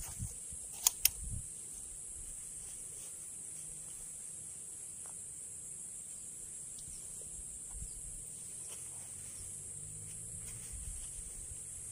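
Steady high-pitched chorus of insects, with two sharp clicks about a second in.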